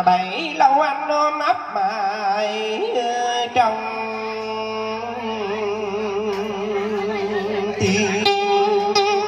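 Live Vietnamese cải lương (tân cổ) music amplified through a PA: a man singing with wide vibrato over a plucked string instrument bending its notes. Sharp plucked strokes come in near the end.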